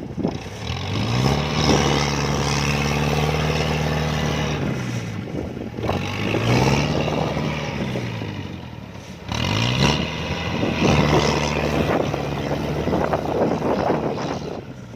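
Diesel engine of a tracked rice harvesting machine revving up, holding and easing off three times, with a rough clattering noise throughout, typical of the machine labouring in deep mud.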